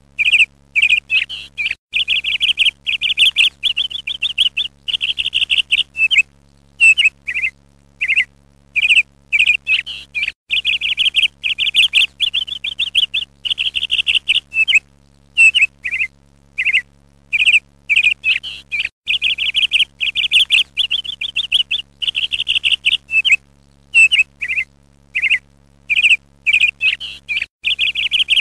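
A songbird chirping and trilling in quick, high, repeated phrases with short pauses between them, over a faint steady low hum.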